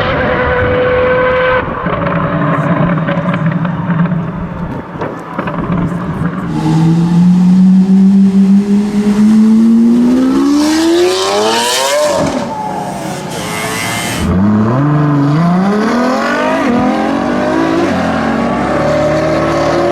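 V12 supercar accelerating hard past, its engine note climbing steadily to a peak as it goes by about twelve seconds in. It then keeps revving up through several quick upshifts, each a short rising glide.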